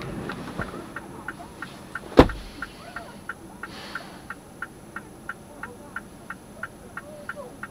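Car's hazard-light flasher relay ticking evenly, about three clicks a second. One sharp thump about two seconds in.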